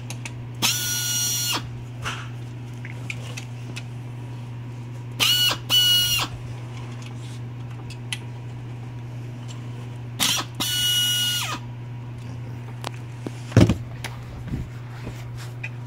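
Pneumatic screwdriver driving the housing screws of a pump motor: short runs of a high whine with air hiss, three times, the second and third each in two quick pulses. A steady low hum runs underneath, and near the end there is a single knock as the tool is set down on the bench.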